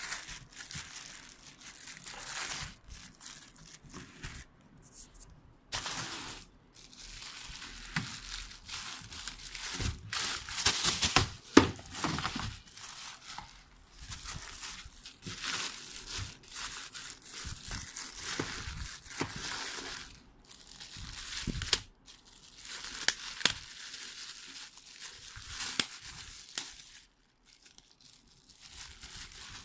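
Plastic packaging crinkling and rustling as vacuum cleaner parts are unwrapped and handled, with scattered clicks and knocks of plastic parts; one sharp knock about eleven seconds in is the loudest sound.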